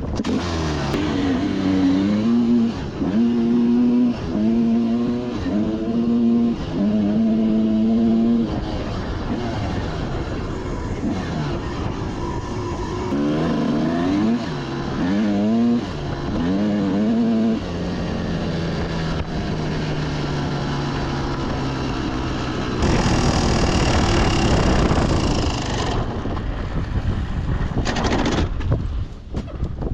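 Dirt bike engine revving hard and shifting up through the gears, its pitch climbing and dropping about once a second, then holding a steadier, slowly falling pitch. A loud rushing noise takes over for about three seconds near the end.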